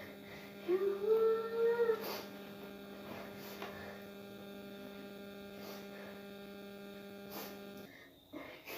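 Steady electrical mains hum. About a second in, a person's voice holds one long note that rises at the start and then stays level for about a second. The hum cuts off suddenly near the end.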